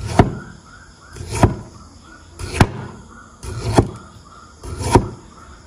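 Cleaver slicing a bamboo shoot into thin rings on a plastic cutting board: five sharp knocks of the blade on the board, about one a second, each following a short swell as the blade goes through the shoot.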